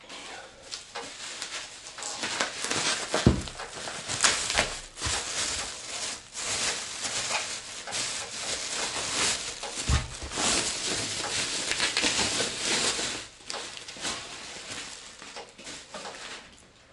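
Thin plastic packaging bag crinkling and rustling as it is pulled open and rummaged through, with a couple of soft knocks.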